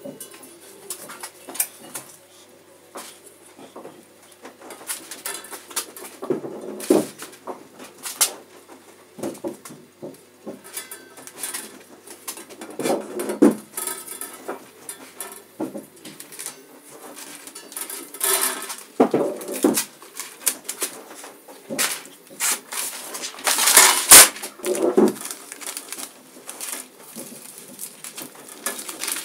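Irregular handling noise: paper rustling and crinkling as a large stencil sheet is moved and peeled back, with scattered knocks and clatter of a steel saw blade against a steel worktable.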